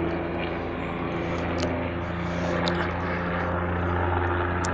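Low-flying aircraft overhead, its engine or rotor giving a steady droning hum of unchanging pitch.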